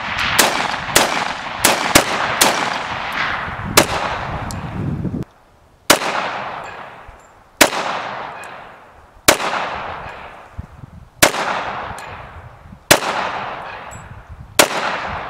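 Gunfire from an AR-15-style rifle and a semi-automatic pistol: a rapid run of overlapping shots for about five seconds, then six single pistol shots spaced evenly, each trailing off in a long echo.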